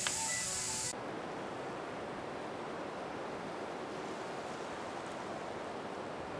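Steady rushing background noise with no distinct events. A brighter hiss with faint steady tones cuts off suddenly about a second in, after a small click right at the start.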